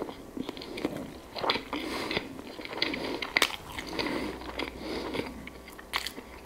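Close-miked chewing of whole-wheat bread with honey, a steady run of soft, moist bites and chews. Two sharp clicks break in, about halfway through and again near the end.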